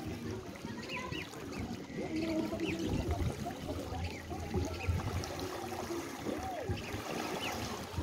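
Small waves lapping and washing over pebbles and rocks at the water's edge, a steady trickling wash that swells and ebbs.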